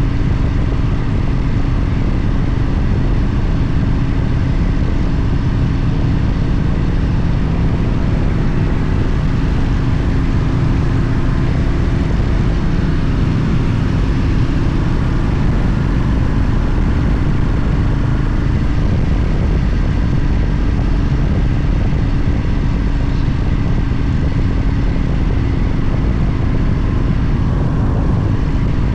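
Motorcycle engine running at a steady speed, a constant low drone with no rise or fall in pitch, as when cruising along.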